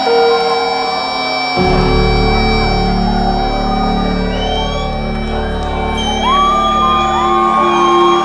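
A rock band playing live, heard through the venue's PA from the crowd: held guitar tones, with a deep bass coming in about one and a half seconds in.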